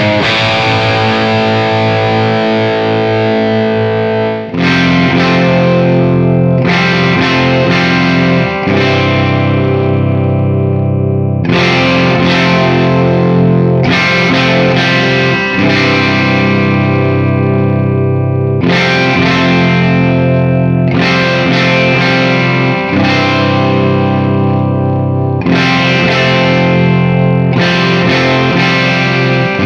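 Electric guitar, a Gibson Les Paul with PAF-style humbucker pickups, played through an overdriven amp. A chord rings out for about four seconds, then a series of chords is struck every second or two, each left to ring.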